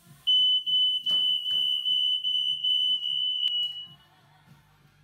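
Household smoke detector sounding one steady high-pitched beep for about three and a half seconds, with a few clicks over it, then cutting off.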